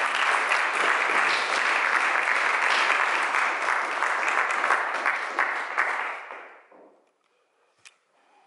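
Small audience applauding, dying away about six and a half seconds in.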